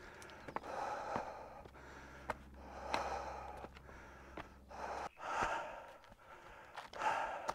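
A hiker breathing hard on a steep uphill climb, one heavy breath every second and a half to two seconds, with short clicks of boots on loose rock between the breaths.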